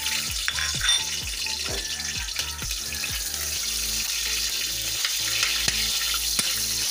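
Chopped garlic and onion sizzling steadily in hot oil in a wok, with a few light clicks from stirring.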